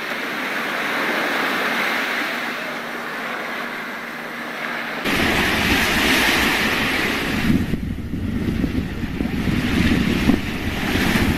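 Sea surf washing on a beach. About five seconds in, wind starts buffeting the microphone with a low rumble.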